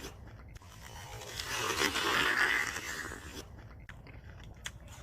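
Someone biting into a crisp, juicy Crown pear with a loud crunch, then chewing it with a run of small wet crunching clicks.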